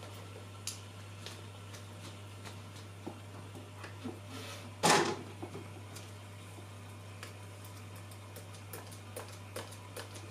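Handling noises while fish food is fetched and the tank is reached into for feeding: scattered small clicks and taps, one loud clunk about five seconds in, and a quick run of light ticks near the end, over a steady low hum.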